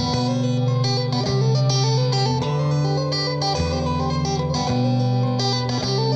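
Instrumental electric guitar music: ringing high notes over low notes that change about every second.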